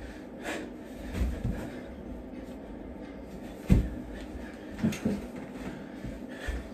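Dull thumps of hands and feet landing on a carpeted floor during burpees, a few seconds apart, the loudest a little past halfway.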